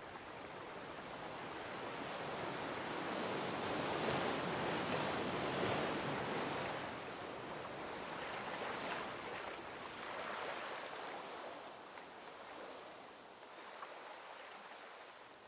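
Sea waves washing onto a shore around rocks, swelling to their loudest about four to six seconds in, rising again briefly around ten seconds, then easing off.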